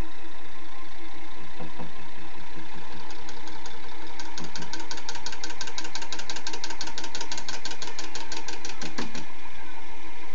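Bedini pulse motor running, its neodymium-magnet rotor spinning up with a steady hum. From about three seconds in to about nine seconds, a rapid, even ticking sounds over the hum.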